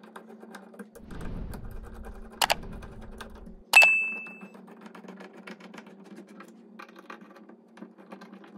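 Screwdriver turning the mounting screws of a porcelain lampholder into a ceiling box: a run of small clicks and scrapes, with a sharper click about two and a half seconds in. Close to four seconds in comes a loud click followed by a short bright ding, like a notification chime, and a faint steady hum runs underneath.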